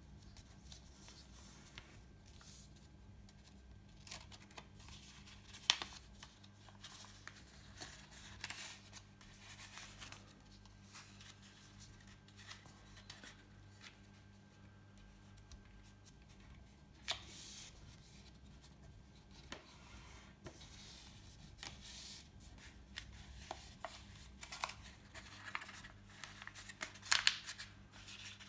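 A sheet of paper being folded and creased by hand: intermittent rustling and crinkling, with a few sharp crackles about six seconds in, around seventeen seconds and near the end. A faint steady low hum runs underneath.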